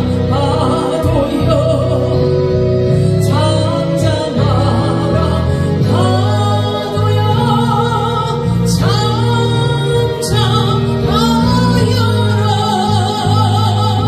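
A woman singing a Korean gospel praise song into a handheld microphone, in long held phrases over an instrumental accompaniment with a strong, steady bass.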